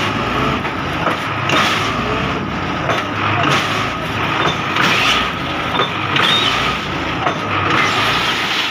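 Belarus 510 tractor's diesel engine running hard under load, working to pull an overloaded trolley whose wheels are sunk in soft ground.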